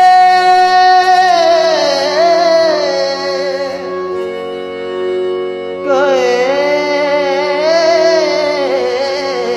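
A man singing a slow, ornamented Urdu song line with long held notes over the steady reed tones of a harmonium. Near the middle the voice drops out for about two seconds, leaving the harmonium alone, then comes back in.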